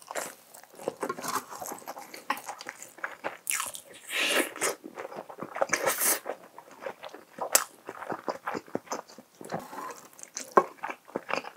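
Close-miked eating of spicy stir-fried tofu in thick sauce: wet chewing, lip smacks and many short clicks, with two longer slurps from the spoon around the middle.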